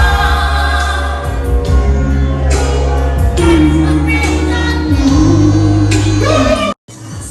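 Music with a singing voice over a heavy, steady bass line, cutting off abruptly near the end.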